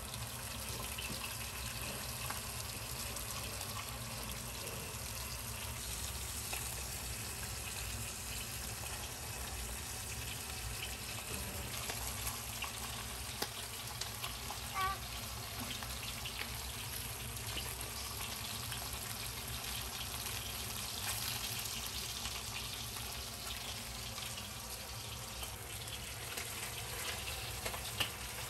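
Oil sizzling steadily under a whole crucian carp pan-frying in a wok, with scattered small crackles and a few sharper pops of spattering oil.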